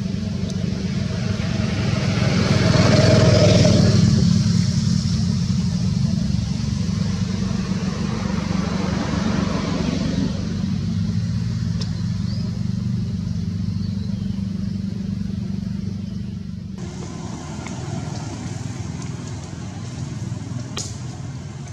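Steady low rumble of a motor vehicle engine running nearby, swelling louder for a couple of seconds about three seconds in. The sound changes abruptly about seventeen seconds in, becoming thinner and quieter.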